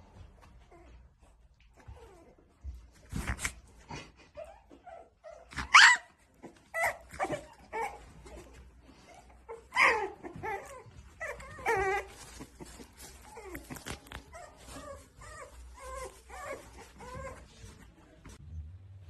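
Young puppies whining and yipping in a string of short high calls, with a few sharper, louder yelps about six and ten seconds in.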